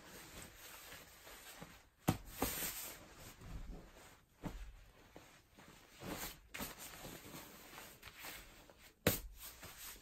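Clothes rustling and swishing as they are folded and rolled up tightly by hand, with two sharp knocks, about two seconds in and near the end.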